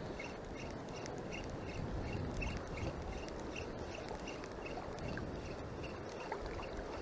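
Steady wash of choppy shallow sea water around a wading angler, with a faint, regular ticking about three times a second.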